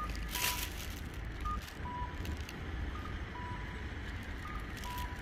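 Electronic two-tone beeping, a short higher note followed by a longer lower note, repeating about every second and a half, over a steady low rumble of street traffic.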